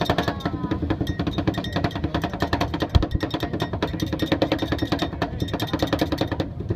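Metal spatulas chopping and tapping quickly on a rolled-ice-cream cold plate, a fast, even run of sharp clicks.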